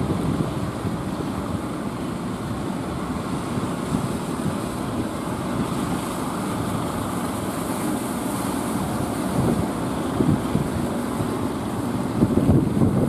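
Wind buffeting the microphone over the steady rush of surf, a low irregular rumble with a few stronger gusts near the end.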